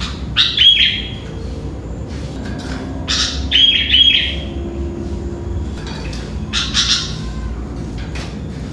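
Sooty-headed bulbul (kutilang) calling: short phrases of quick bright notes, the loudest about half a second in, around three to four seconds in and near seven seconds, over a steady low hum.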